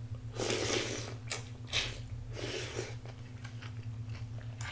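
A person eating mulhoe, Korean cold spicy raw-fish soup with vegetables, close to the microphone: two loud slurps about two seconds apart, with small crunchy chewing clicks between them. A steady low hum runs underneath.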